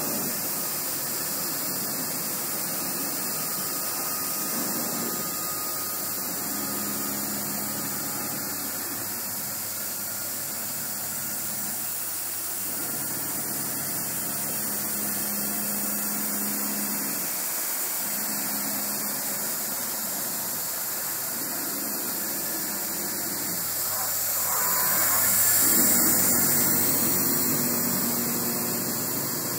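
MultiCam 3000 CNC router with all-servo drives running a sample program at 650 IPM. The axis motors hum in separate runs a few seconds long, sliding up and down in pitch as the head speeds up and slows down between moves. Underneath is a steady hiss from the running spindle, and the sound swells louder near the end.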